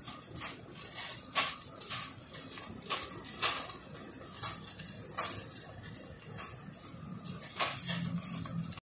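Pot of sinigang fish broth coming to a simmer: irregular small pops and ticks of bubbles breaking, a few each second, over a faint low rumble.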